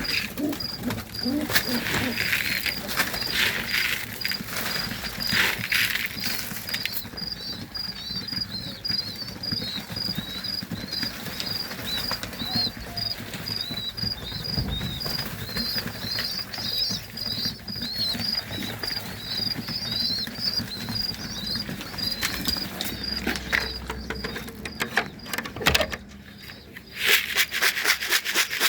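Pigeons in a loft: wings flapping and feed pattering during the first few seconds, over a long run of high, evenly repeated chirps. A quick flurry of clicks and pecking comes near the end.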